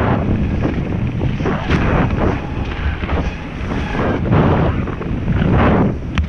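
Wind buffeting a GoPro action camera's microphone while mountain biking: a loud, gusting rumble that swells and fades. A single sharp click comes near the end.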